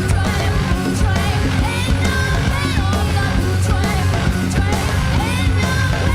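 Live rock band playing loud and heavy, with a prominent electric bass and drums under shouted, sliding vocals.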